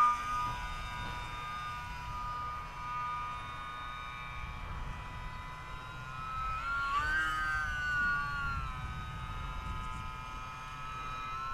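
Electric motor and propeller of an E-Flite UMX Pitts S-1S micro RC biplane, running on its 2-cell 7.4-volt battery, whining steadily overhead. About seven seconds in the whine rises in pitch and grows louder, then falls back over the next two seconds. Low wind rumble on the microphone underneath.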